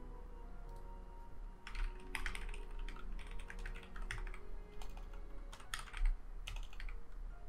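Typing on a computer keyboard: an irregular run of key clicks that starts a couple of seconds in, over faint background music.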